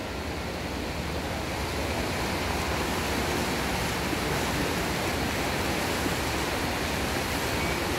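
Steady wash of splashing from a field of racing swimmers swimming butterfly in a competition pool, growing a little louder in the first couple of seconds as they surface and start stroking.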